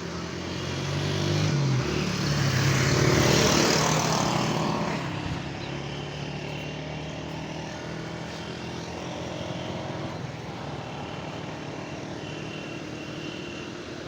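A motor vehicle's engine passing close, growing louder about a second in and fading after about five seconds, then a steadier engine hum over constant background noise.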